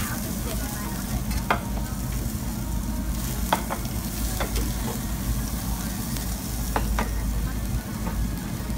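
Pork belly and beef sizzling over flame on a yakiniku tabletop grill, a steady hiss over a constant low hum. Several sharp metallic clicks break through, the metal tongs knocking against the grill.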